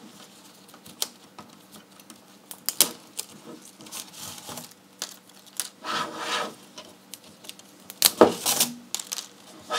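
Hands pulling the retaining clips off a spool of 3D-printer filament: scattered small plastic clicks, with rubbing and scraping against the spool and coil. Louder scrapes come around three, six and eight seconds in.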